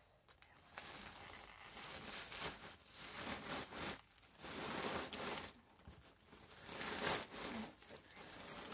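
Bubble wrap crinkling and crackling as it is pulled and unwound from around a doll, coming in several surges of a second or so each.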